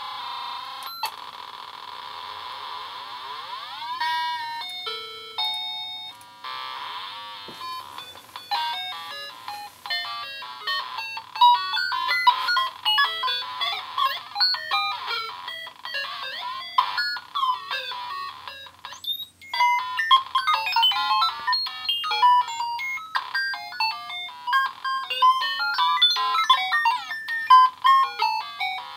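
Circuit-bent VTech Alphabet Apple toy making glitchy electronic bleeps, stepped through by a Synthrotek 8-step sequencer. Sliding tones in the first few seconds give way, about eight seconds in, to a fast run of short beeps that jump from pitch to pitch, with a brief break partway through.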